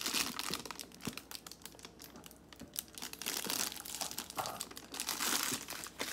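Clear plastic wrapping crinkling and rustling in irregular bursts as the bagged chain strap inside a purse is handled.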